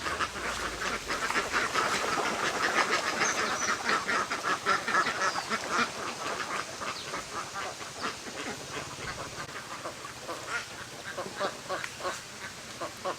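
A large flock of domestic ducks quacking continuously, many birds calling over one another. It is loudest in the first half and thins out somewhat toward the end.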